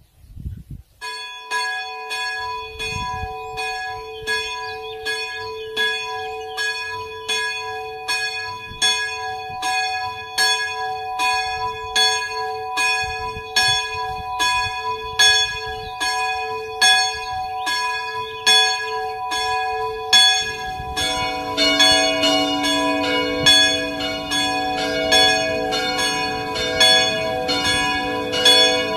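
Simulated church bells ringing. A single bell tolls steadily at about one and a half strokes a second from about a second in, and a second, lower-pitched bell joins about 21 seconds in, so the strokes come thicker.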